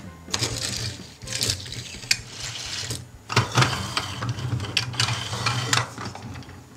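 Toy cars and buses being set down and rolled on a hard tabletop: clicking and rattling of plastic and die-cast toys and their small wheels, in several stretches with short pauses.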